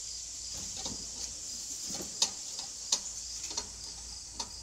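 Crickets chirring steadily, with irregular sharp clicks and light taps from hands working a grow bag of sweet potatoes, the loudest a little after two seconds and again near three.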